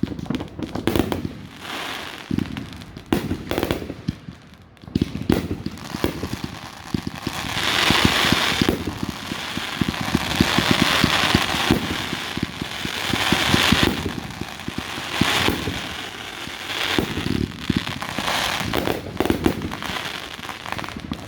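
Fireworks display going off: repeated bangs of shells bursting with rapid crackling between them, and several long swells of dense crackle.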